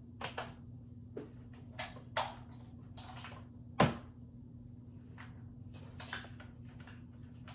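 A run of short clicks, taps and rustling knocks, about a dozen, the loudest a sharp knock just under four seconds in, over a steady low hum.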